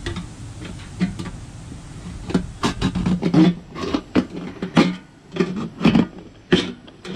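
Knife blade being worked down through the thick aluminium wall of a large beer can: a run of short, sharp metallic cutting strokes, about two a second, starting about two seconds in.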